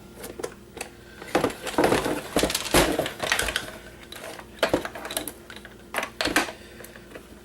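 Clicks and clatter of small hard plastic and metal parts and hand tools being handled while taking apart a camcorder, a dense run of knocks starting about a second in, then a few scattered ones.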